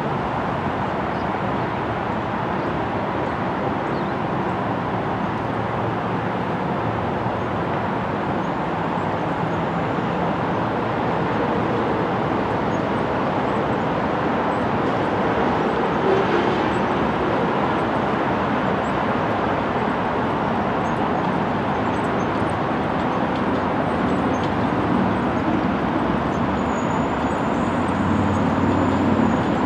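Steady vehicle noise: an even, unbroken rumble with no clear engine tone.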